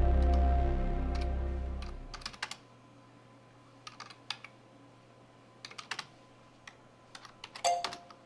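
A low ambient music drone fades out over the first two seconds, then a computer keyboard is typed on in short bursts of key clicks separated by pauses, the loudest burst near the end.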